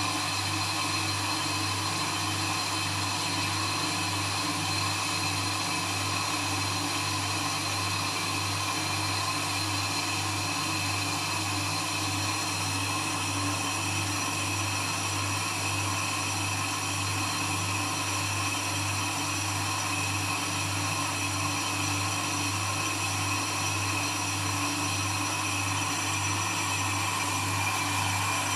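Brake disc lathe running steadily, turning a brake disc as its cutting tools skim the disc faces: an even motor hum with a thin, high whine over it.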